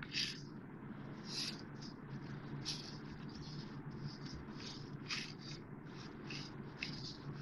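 Soft, irregular squishing and crinkling of a plastic-gloved hand kneading stiff milk-powder dough in a ceramic bowl, a few light rustles a second. A low steady hum runs underneath.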